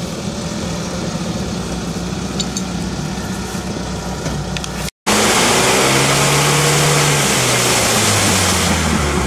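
UAZ-469 off-roader's engine running under load as it drives through a muddy stream, its wheels throwing water and mud. After a short break the engine is louder, holding its revs and then slowly dropping in pitch near the end.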